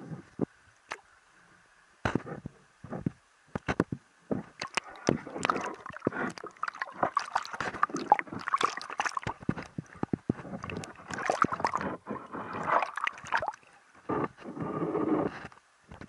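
Water sloshing and splashing with many irregular sharp knocks and clicks, busiest through the middle.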